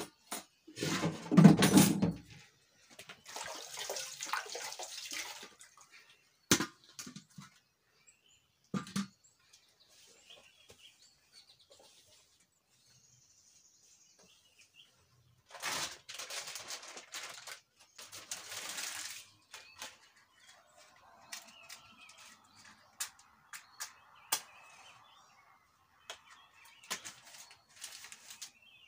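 Household handling noise at a stone cooking hearth: a loud knock and clatter near the start, stretches of rustling, and scattered sharp knocks of pots, leaves and firewood being moved and cut. Birds chirp faintly in the background.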